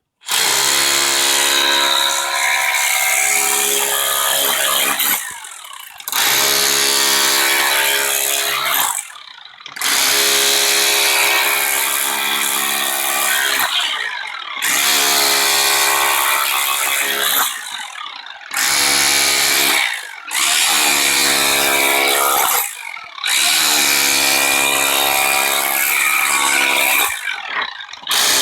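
Bosch power tool run in about eight bursts of a few seconds each, with short pauses between. The motor pitch slides up as each burst starts and down as it stops.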